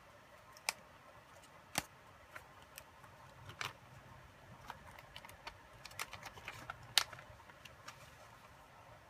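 Sparse, irregular light clicks and ticks of small parts being handled on a work mat, with the loudest click about seven seconds in.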